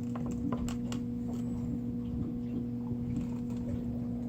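Light clicks and ticks of steel leader wire, hooks and swivels being handled and twisted by hand, mostly in the first second. Underneath runs a steady low electrical or machinery hum.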